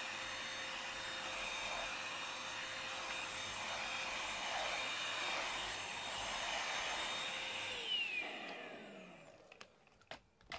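Handheld stick vacuum cleaner running steadily with a high motor whine, then switched off about eight seconds in, its whine falling as the motor spins down. A few light clicks follow near the end.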